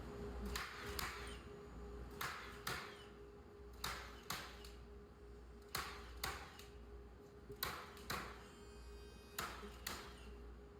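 Nails being driven into wooden pallet boards: sharp strikes in pairs, about half a second apart, a pair every couple of seconds, six pairs in all, over a steady hum.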